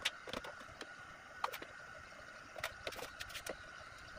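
Light clicks and knocks of PVC pipe and fittings being handled, a handful of them scattered through the few seconds, over a steady faint high-pitched drone.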